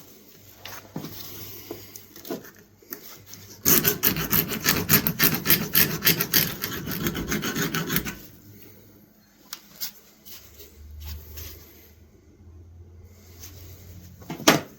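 Vintage Imperial pocket knife blade being worked by hand against an abrasive, with rasping rubbing strokes as chips along the edge are ground out and the tip is reshaped. A fast, steady run of strokes lasts from about four seconds in to about eight seconds; before and after it there are only light, scattered scrapes.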